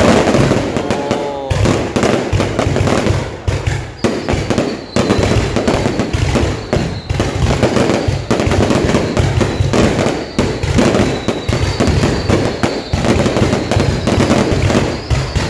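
Dense, continuous crackling and popping of fireworks and firecrackers, with faint high whistles about four seconds in and again near twelve seconds.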